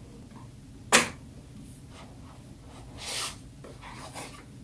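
Phone packaging handled by hand: one sharp click about a second in, then brief sliding and rustling of box parts a couple of seconds later.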